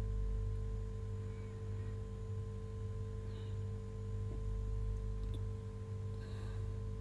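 Steady low electrical hum made of several constant tones, with a few faint taps of a metal spatula against a frying pan about four and five seconds in.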